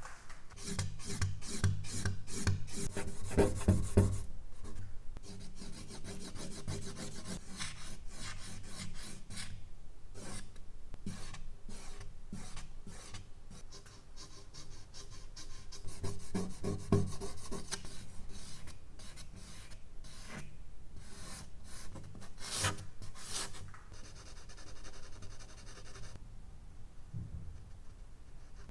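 Charcoal scratching and rubbing on medium-surface drawing paper in quick repeated strokes, coming in spells with short pauses. The strokes are loudest in the first few seconds.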